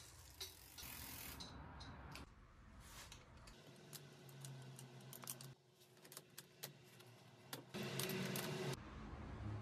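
Metal clinks and clicks from a wrench working the clamp bolt as a bicycle saddle is fitted onto its seatpost: an irregular run of small sharp clicks, with a louder clatter of metal near the end.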